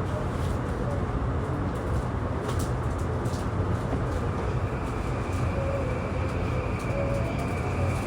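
Running sound heard inside a JR East E235-1000 series electric train under way: a steady rumble of wheels on rail. A thin, steady high whine comes in about halfway through.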